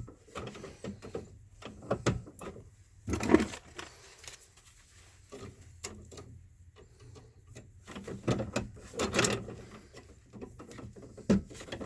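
Irregular clicks, taps and rattles of hands and tools working the wiring inside a metal electrical switch box, with a few louder rattling spells.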